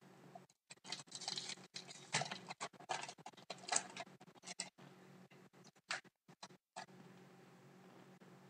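Trading cards and a foil pack being handled: a few seconds of rustling and sliding, then a couple of light clicks about six seconds in.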